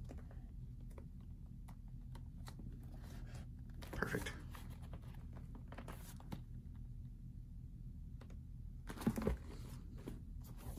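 Handling noises from a leather baseball glove and its leather lace being turned and pulled: faint scattered rubbing and clicks, with two louder scrapes about four seconds in and near the end, over a steady low hum.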